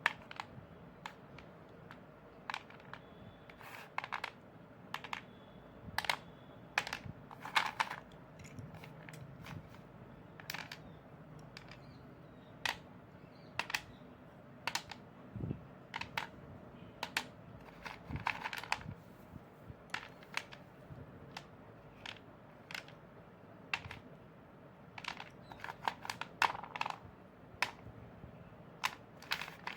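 Crisp crunching: irregular short cracks and clicks, sometimes singly and sometimes in quick clusters, over a faint steady hiss.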